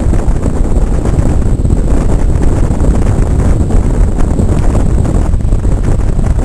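Steady wind noise on the microphone of a moving ski boat, over the running of the boat's engine and the rush of water.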